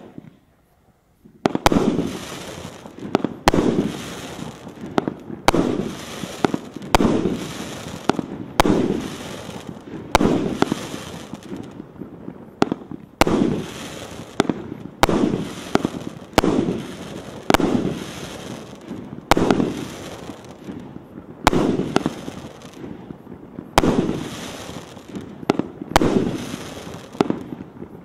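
A 36-shot, 1.2-inch firework cake fires its shots in a steady series starting about a second and a half in, roughly one to two a second. Each shot is a sharp bang followed by a short crackle that fades as the stars burst into sparks.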